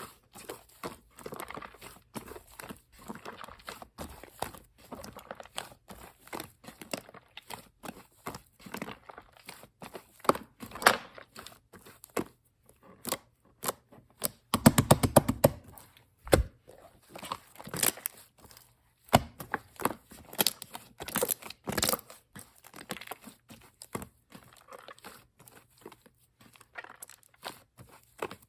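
Shaving-foam slime being squished and pressed by hand, giving a string of small crackling pops and clicks, with a quick run of rapid clicks about halfway through.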